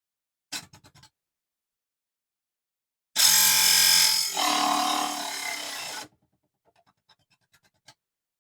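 A mini table saw runs for about three seconds, its motor's steady whine dropping in pitch partway through as it takes load, then cutting off sharply. A few light clicks come before it.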